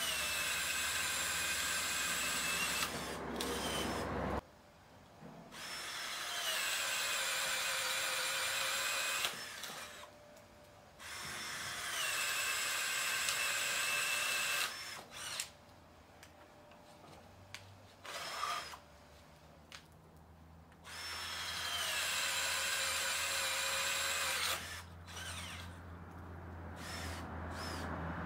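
Total TDLI20025 20V cordless drill boring through a wooden board with a spade bit, in four runs of three to four seconds each with short trigger blips between. The motor's whine dips in pitch at the start of each run, then holds steady.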